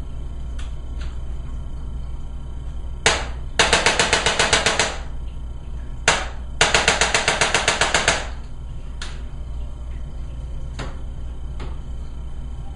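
Impulse chiropractic adjusting instrument firing two rapid runs of thrusts, each about ten quick clicks lasting over a second, starting about three and six seconds in. Each run is preceded by a single sharp click, and a few fainter single clicks come before and after.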